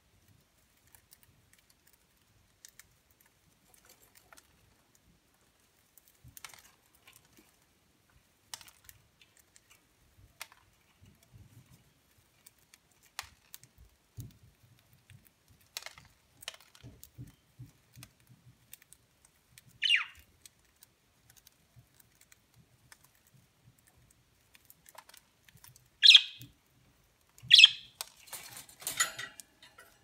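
Budgerigars cracking millet seeds off a millet spray, heard as scattered soft clicks and ticks. Three short, loud, sharp budgie calls stand out, about twenty seconds in and twice more a few seconds later, followed by a brief flurry of rustling and clicking near the end.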